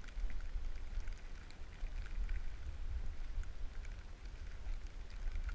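Wind rumbling on the camera's microphone and the hiss of skis running through deep powder snow, with small scattered crackles.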